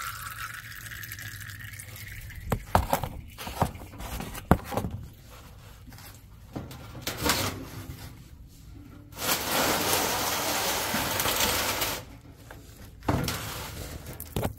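Used engine oil from a Cat C12 diesel's drain plug, held partly loose, pattering and splashing into a metal drain pan, cut off after about two and a half seconds as the plug is snugged back. Sharp knocks and clatter of handling follow, then about three seconds of loud, even rushing noise and a few more knocks near the end.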